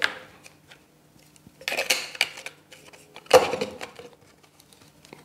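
Hard plastic parts of a Dupla Cube Skimmer 120 protein skimmer clattering and scraping as the clear collection cup is handled and fitted into the white skimmer body. There is a bout of scraping and clicks about two seconds in, and the loudest sound is a sharp knock a little after three seconds.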